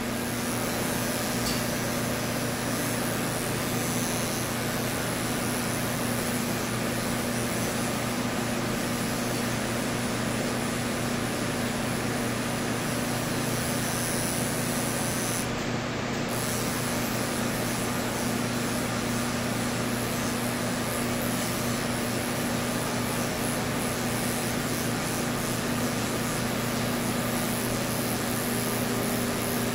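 Cordless electric pet clippers running steadily with an even motor hum as the blade shaves through a Persian cat's matted coat.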